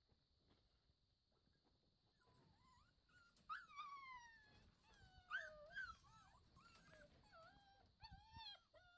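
Seven-week-old Brittany puppies whining: after a few quiet seconds, a string of high, drawn-out cries that slide and waver in pitch, starting about three and a half seconds in.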